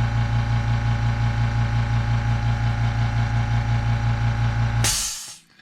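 Makita 1/2-horsepower oilless Quiet-series air compressor running with a steady, pulsing hum as it fills its 1-gallon tank. Near the end it reaches cutoff pressure of about 135 psi. It shuts off with a short hiss of released air, and the motor runs down.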